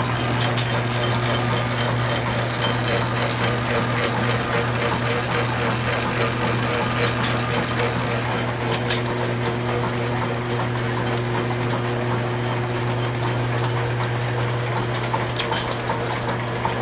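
Antique Star lathe's change gears and line-shaft drive running steadily and pretty quiet: an even low hum with several constant tones over it. A few sharper clicks come about nine seconds in and again near the end.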